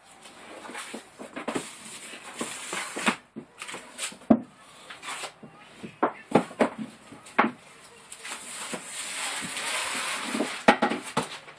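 Self-adhesive vinyl flooring planks being handled and laid: irregular light taps and knocks, with two stretches of rustling, about two seconds in and again near the end.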